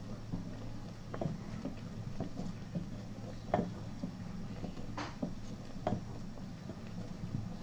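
Spatula stirring hot milk in a steel pot as lemon juice curdles it into chhana, knocking against the pot's side every second or so, over a steady low hum.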